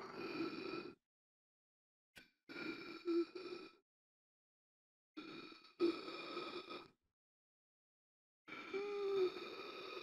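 A person gasping for air: a series of strained, rasping breaths about every three seconds, each a second or two long, with dead silence between them. Some carry a short voiced catch, near the end a brief groan.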